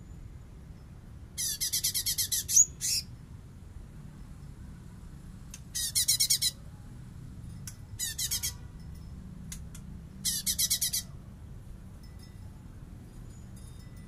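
Blue-winged leafbird (cungkok) singing in four short bursts of rapid, sharp, high repeated notes, a few seconds apart, the first burst the longest. It is the hard, fast-fire 'bessetan' song kept as a training recording for other songbirds.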